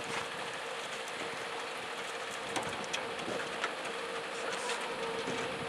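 A steady hiss with scattered light clicks and knocks as hounds jump into a metal dog box on a pickup and move about inside it.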